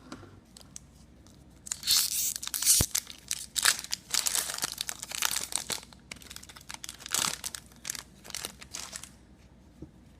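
A hockey trading-card pack wrapper being torn open and crinkled, in repeated bursts of tearing and rustling that die away about nine seconds in, with one sharp tap near the start.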